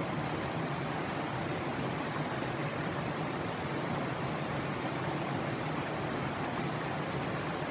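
Tanew river rushing over low rock-ledge rapids and small cascades: a steady, even rush of water.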